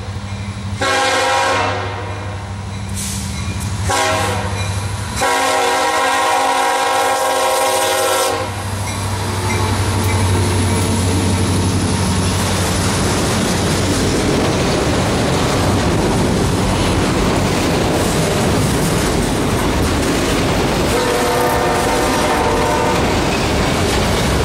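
A diesel freight locomotive's chord horn blows a crossing signal, two long blasts, a short one, then a long one, over the hum of its engine. The train then rolls past with a steady rumble and clatter of wheels on the rails, and the horn sounds once more briefly near the end.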